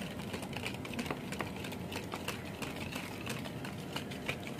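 Hand wire whisk beating liquid cake batter in a plastic bowl: a quick, uneven run of light clicks and taps as the wires strike the bowl.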